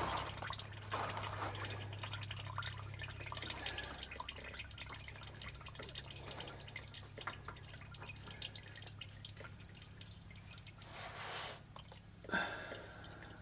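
Engine oil dripping and trickling steadily into a drain pan as it drains from the underside of a Kawasaki Mule Pro FX while the oil filter is unscrewed by hand. There is a louder splash near the end as the filter comes free and oil pours from it.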